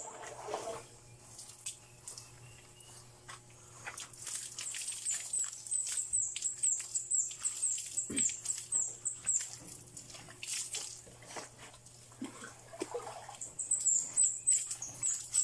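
Water poured from a plastic jug splashing over a wet dog during a bath, with runs of short, very high-pitched squeaks, loudest in the middle and near the end.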